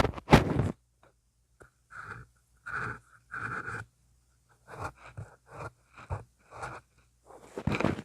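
Ear pick scraping over a mini microphone in ear-cleaning ASMR: a loud crackly scrape in the first second, then a series of short, separate scratchy strokes about every half second.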